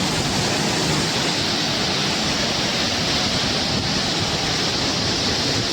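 Waterfall in heavy flow, the water pouring down hard enough to throw up mist: a loud, steady rushing roar.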